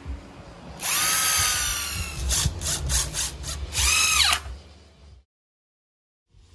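A Bosch cordless drill boring holes in a pine board. The motor whines and slowly drops in pitch as it drills, then gives several short stop-start spins, and ends with one spin that rises and falls.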